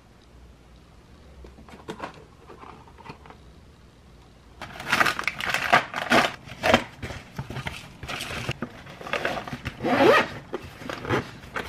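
Plastic snack packets crinkling and rustling as they are handled and packed into an insulated lunch bag: faint rustles at first, then a dense run of loud, irregular crinkling from about four and a half seconds in.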